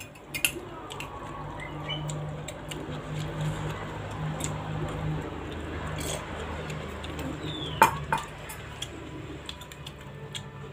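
Spoon clinking and scraping against a plate while eating, a scatter of small clicks with a few sharper clinks, the loudest nearly eight seconds in. A steady low hum runs underneath.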